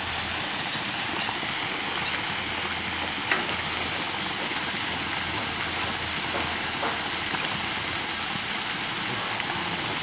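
Steady rushing of a waterfall, an even noise that holds at one level throughout.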